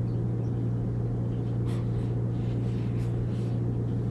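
Steady low hum of shop room tone, with a few faint soft rustles about halfway through.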